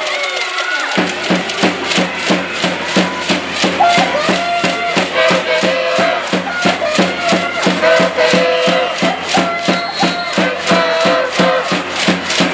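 Volleyball cheering section clapping in a fast, even beat, about three or four claps a second starting about a second in, with voices chanting or singing a tune over the clapping.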